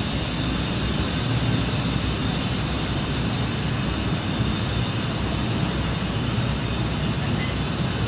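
Gas burners of a flash-fire test chamber running at full blast, wrapping a manikin in flame: a loud, steady rush of burning gas, like a jet engine.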